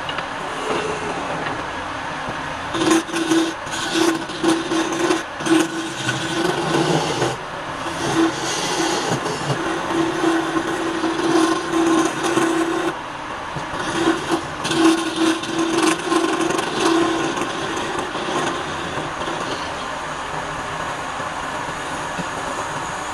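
Wood lathe running while a hand-held turning tool cuts the spinning wooden spindle, a steady machine hum under a rasping cutting noise. The cutting comes in repeated bursts through the middle, then the lathe runs more evenly near the end.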